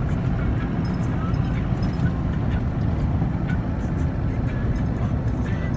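Steady road and engine noise inside a moving car's cabin, a low, even rumble.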